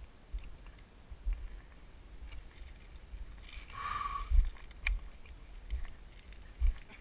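Soft, irregular low thumps of footsteps and knocks on the player-worn camera, with a brief higher-pitched sound about four seconds in and a sharp click shortly after.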